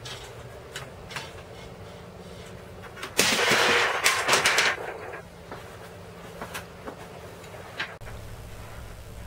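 A Savage SVLB48 LED box level dropped from six feet lands on its end on concrete patio blocks with a loud crash, then clatters and bounces for about a second and a half. The impact knocks off its battery cover.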